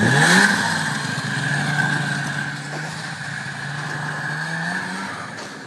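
Snowmobile engine revving up hard, then running at a steady high speed with a high whine over it, rising once more about five seconds in before the sound dies down.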